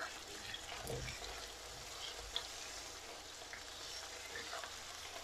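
Lamb pieces sizzling softly as they sauté in a nonstick frying pan, with wooden spatulas stirring and turning them and a couple of light taps against the pan.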